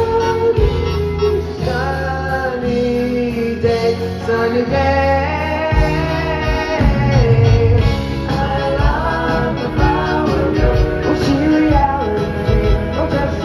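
Live pop band playing with sung vocals, several voices moving together in harmony over the instruments.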